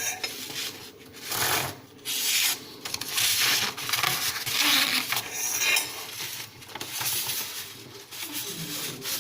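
A sheet of paper and a steel straight edge rubbing and scraping over a thick glass plate in short strokes, about one a second, as the paper is slid under the edge to check the glass for dishing from wear.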